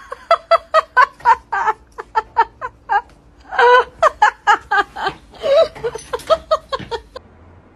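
A person laughing hard, a long run of short rapid bursts that stops about seven seconds in.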